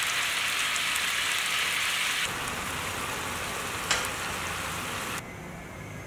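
Chicken feet sizzling in a pan of red chili sauce, a steady frying hiss. About two seconds in it changes to a softer cooking hiss from a pan of mushrooms, bean sprouts and chicken feet in sauce, with a single click near four seconds, and the sound drops quieter shortly before the end.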